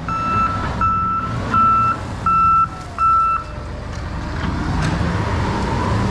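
Vehicle reversing alarm beeping steadily, about one beep every three-quarters of a second, five beeps before it stops about three and a half seconds in. A low engine rumble runs underneath.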